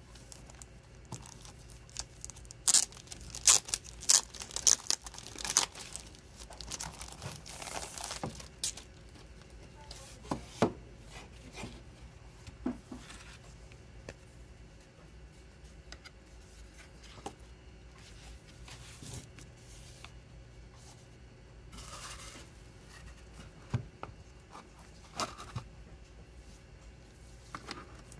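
Packaging of a cardboard photo frame being torn and crinkled by hand: a dense run of sharp rustling and tearing a few seconds in, then scattered rustles of paper and card and light taps on the table.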